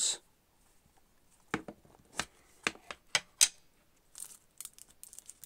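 Unboxing handling noise from a small rigid box: several light, separate taps and clicks as the box and its lid are handled, then a soft crinkle of plastic wrap near the end as the wrapped dongle is lifted out.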